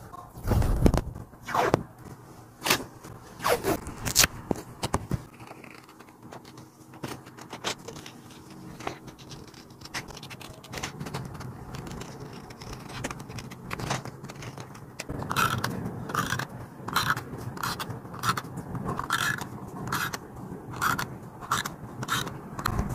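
Paper and stationery being handled while decorating a planner page. A few sharp taps and clicks come in the first seconds, then quieter rustling, then a run of short, repeated scraping strokes from about two-thirds of the way through.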